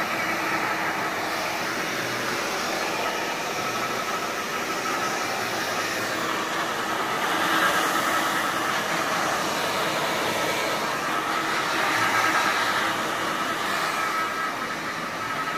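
Handheld hair dryer running steadily, a rushing blow of air with a faint steady whine, swelling slightly about halfway through and again near the end. It is rough-drying the hair all over, the first stage of a straight blow-dry.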